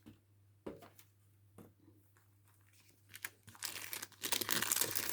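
Packaging being opened by hand: a few light knocks, then from about three seconds in a run of crinkling and tearing.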